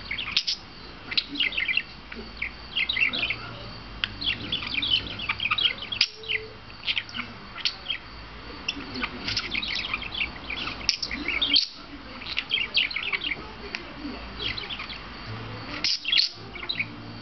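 Pet budgerigar (parakeet) chattering in dense strings of short, high chirps and warbles, in bursts separated by brief pauses.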